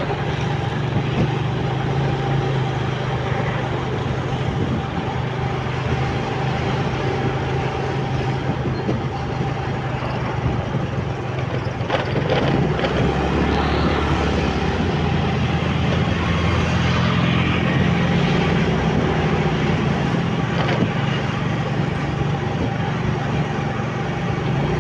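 Motorcycle engine running at riding speed with steady road and wind noise, heard from the ridden bike itself. A single knock comes about twelve seconds in, followed by a few seconds of deeper rumble.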